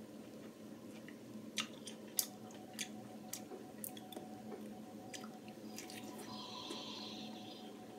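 A person chewing and biting into juicy fresh pineapple: wet, squishy chewing with scattered sharp crunchy clicks.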